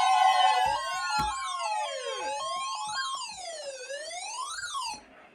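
Several electronic emergency alert alarms sounding at once: siren-like wailing tones rising and falling about once a second, layered with stepped two-pitch beeping tones, all cutting off suddenly about five seconds in.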